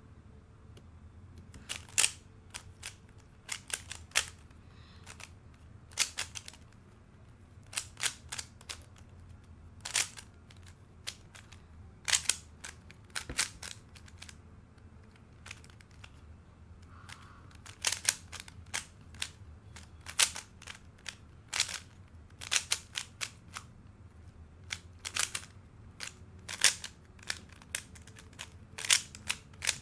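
Moyu RS3M 2020 3x3 speed cube being turned fast in a timed solve: sharp plastic clicks of the layers snapping round, in quick irregular bursts.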